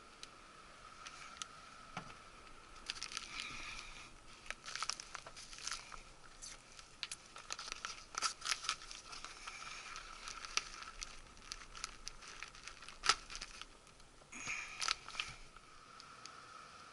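Irregular crinkling and clicking handling noises, densest in the middle, over a steady high-pitched hum.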